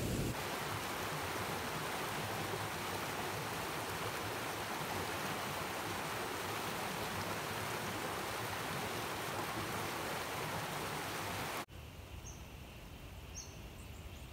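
Shallow creek water running over stones, a steady rushing. Near the end it cuts off suddenly to quiet bush air with a few short high bird chirps.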